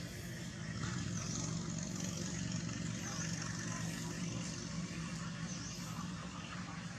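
A steady low hum of an engine running, with faint high chirps now and then above it.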